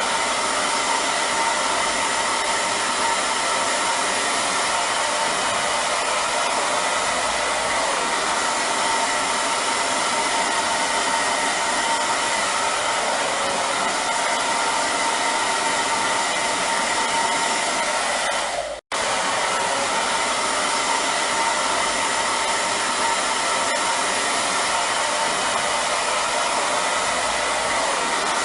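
Hair dryer running steadily with an even rushing blow and a faint motor whine, cutting out for an instant about two-thirds of the way through.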